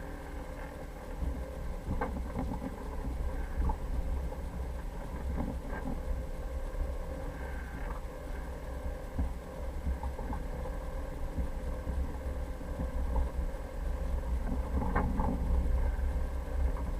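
A 4x4's engine running steadily under a deep rumble, as when driving, with a few brief knocks and rattles from the vehicle along the way.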